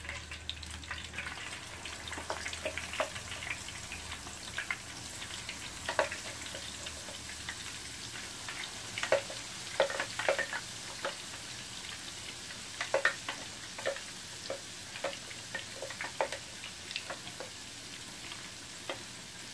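Hot oil sizzling steadily, with scattered sharp crackles and pops, as ginger-garlic paste and chicken pieces fry in it.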